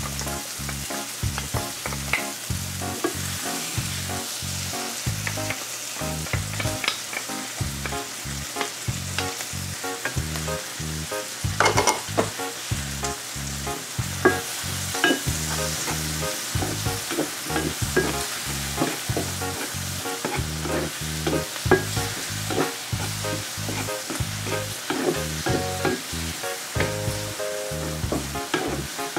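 Chopped bell peppers and onion sizzling steadily in butter in a nonstick frying pan, with a wooden spatula scraping and tapping against the pan as they are stirred.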